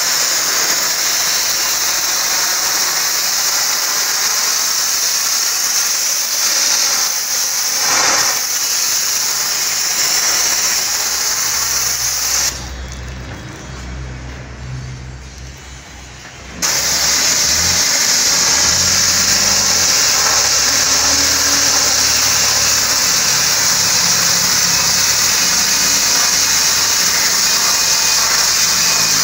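Denjet 500-bar water jet wet-blasting stainless steel with glass beads: the lance gives a loud, steady hiss. About halfway through, the jet cuts out for roughly four seconds, leaving a low engine hum, then comes back on.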